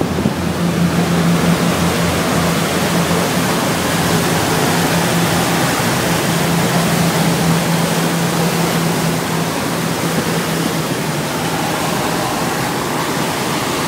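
Passenger ferry under way: the engine gives a steady low hum under the loud, even rush of the churning wake water.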